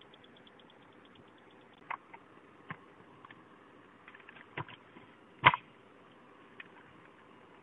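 Handling noise: a few scattered clicks and knocks, the loudest about five and a half seconds in, over a faint steady hiss.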